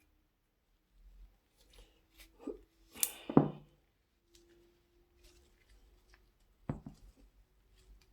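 Small clicks and knocks of bicycle hub parts and tools being handled during cleaning. The loudest is a clunk about three and a half seconds in, and a sharp knock comes near the end.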